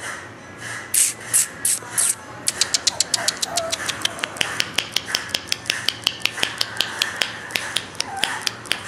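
Four loud sharp smacks about a second in, then a fast run of sharp clicks, about five a second: attention-getting noises made toward a Shiba Inu puppy, which turns to face them.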